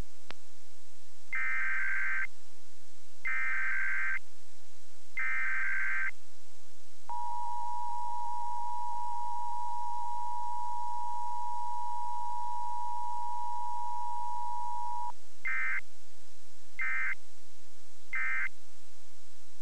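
Sage EAS ENDEC 1822 sending an Emergency Alert System Required Monthly Test: three one-second bursts of warbling SAME header data, then the two-tone attention signal held steady for about eight seconds, then three short end-of-message data bursts. A single click just after the start, from the character generator receiving the alert data over serial.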